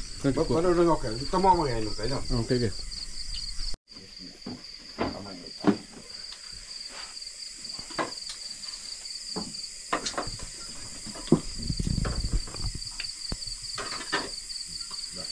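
Insects chirring in a steady, unbroken high drone, with scattered light clinks and knocks of utensils against a metal pot and plates as noodles are served.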